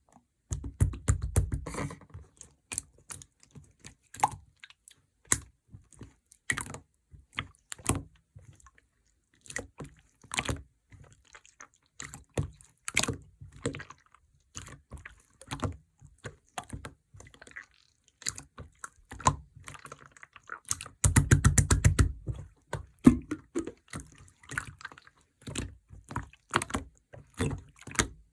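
Clear slime being squished and pressed, making sticky clicks and small air-bubble pops, with two stretches of dense crackling: one starting about half a second in, and one from about 21 to 23 seconds in.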